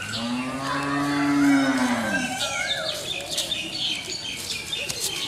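A cow mooing: one long call of about two seconds that drops in pitch at the end.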